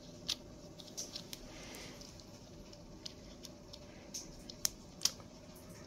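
Faint, scattered clicks and taps of fingers working an Acebeam Pokelit AA flashlight one-handed, trying to get its battery seated. A sharp click comes about every half second to second, with the strongest a little after the start and near the end.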